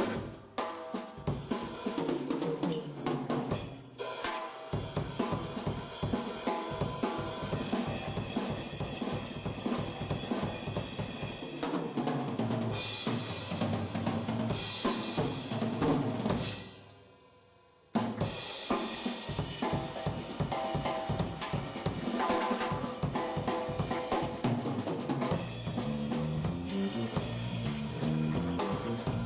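Jazz drum kit playing with the drums to the fore, as in a drum solo: fast snare, rimshot, bass drum, hi-hat and cymbal work. About two-thirds through, the sound fades almost to nothing, then cuts abruptly back in and the drumming goes on.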